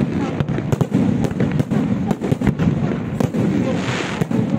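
Aerial firework shells bursting in rapid succession: a dense run of bangs and cracks over a continuous low rumble, with a crackling hiss about four seconds in.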